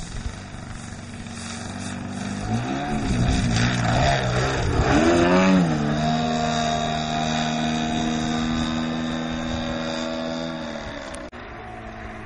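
Engine and propeller of a radio-controlled Katana aerobatic model plane on take-off. The note climbs and wavers in pitch a few seconds in as it is throttled up and passes by, then holds a steady high note through the climb and drops back shortly before the end.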